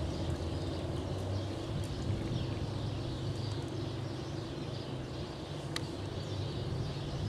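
Outdoor ambience: a steady low rumble with faint high chirping scattered through it, and a single sharp click about six seconds in.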